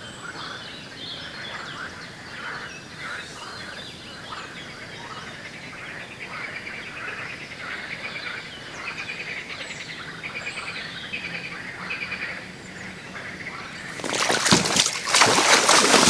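Small birds singing, with many short chirps and rapid trills over a steady outdoor background hiss. About fourteen seconds in, a sudden loud rush of noise covers everything.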